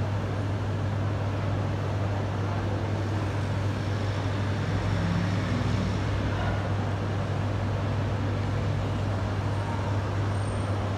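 Steady outdoor background rumble with a constant low hum, traffic-like. Nothing rises or stands out.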